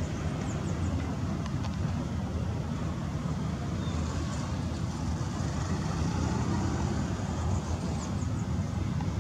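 Steady low rumble and hiss of a Boeing 737-800 and its pushback tug on the apron, heard from across the airfield, with no distinct events.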